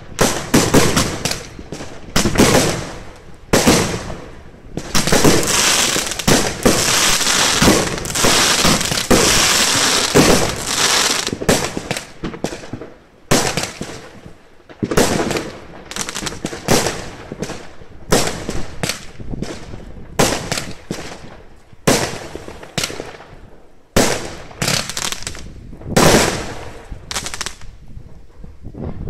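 Aerial fireworks bursting overhead: a rapid run of bangs, a stretch of dense crackling from about five to eleven seconds in, then separate bangs every half second to second.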